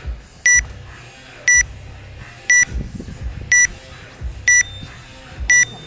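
Electronic workout countdown timer beeping once a second: six short, high beeps counting down the last seconds before the workout starts.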